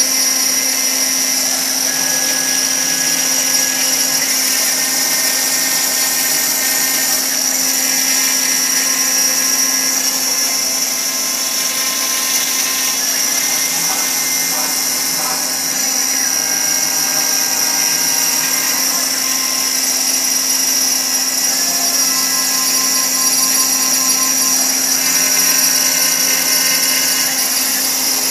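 6040 CNC router's spindle turning a single-flute carbide end mill at 15,000 RPM as it mills through bronze cymbal sheet, a steady high whine over a constant hum from the cut. The cut runs at a gentler 25 inches a minute and 15 thou deep, and does not sound too aggressive.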